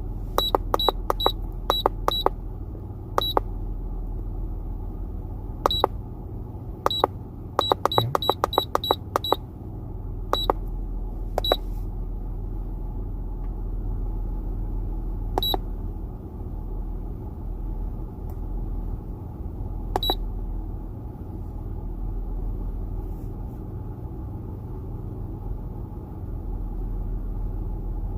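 Handheld OBD tuning device beeping at each button press while its menus are scrolled and selected: about twenty short, identical high beeps, quick runs of them in the first dozen seconds, then single beeps a few seconds apart, over a steady low hum.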